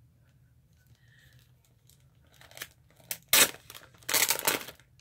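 Sheets of stickers crinkling and rustling as they are handled. Quiet at first, then a few sharp crinkles in the second half, the loudest about three and a half seconds in and again just after four seconds.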